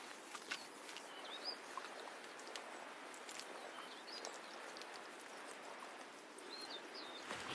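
Rural outdoor ambience: a steady background hiss with a few short, high bird chirps and scattered faint clicks.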